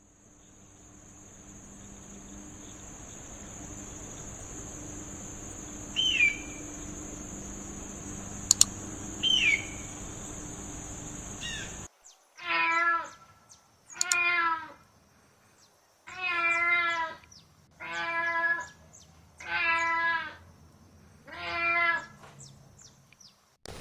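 An animal calling six times in a row, each call about a second long with a wavering pitch. Before that, a steady hiss with two short falling chirps.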